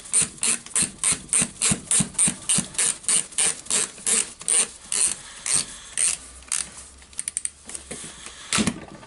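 Ratcheting clicks from a Makita DHP458 cordless combi drill's chuck collar being turned by hand, about three to four clicks a second. Past the middle they turn irregular, with a quick flurry and one sharp click near the end.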